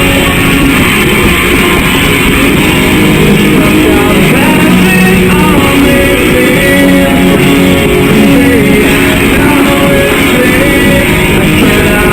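Rock music led by guitar, playing steadily.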